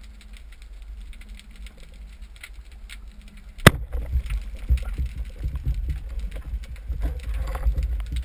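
Underwater sound: a low rumble with scattered faint clicks, then a single sharp crack about three and a half seconds in, after which the low rumble of moving water grows stronger.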